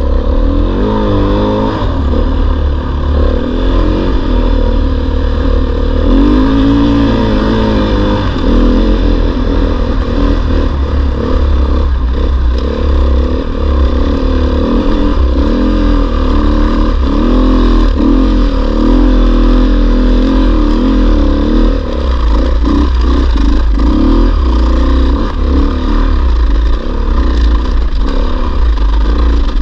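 KTM 500 EXC's single-cylinder four-stroke engine under load, climbing through deep sand, its revs rising and falling again and again with the throttle.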